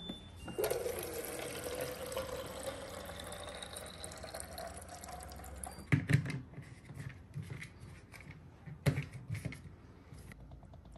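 Water from a purifier tap running into a small glass bottle, its pitch rising as the bottle fills, for about five seconds. Then a few plastic knocks as a water bottle is fitted onto a toy water dispenser.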